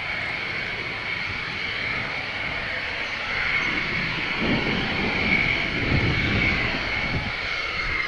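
Mitsubishi F-2B fighter jet on approach, its single General Electric F110 turbofan giving a steady high whine. A deeper rumble builds under it over the last few seconds as the jet draws nearer.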